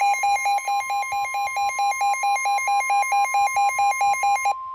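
Midland NOAA weather radio sounding its alert alarm for a tornado warning: a rapid beeping, about four beeps a second, over the steady warning alarm tone of the weather broadcast. The beeping stops about four and a half seconds in as the Weather/Snooze button is pressed, leaving the steady tone.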